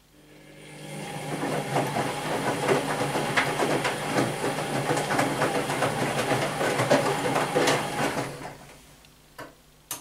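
Whirlpool Primo 1406 UM front-loading washing machine tumbling wet laundry during a rinse: the drum motor starts with a hum, the drum turns for about eight seconds with water and clothes sloshing and dropping, then winds down. Two short clicks follow near the end.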